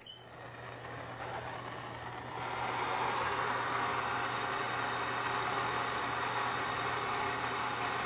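Handheld gas torch flame hissing steadily as it heats a copper pipe joint for soldering, growing louder about two and a half seconds in.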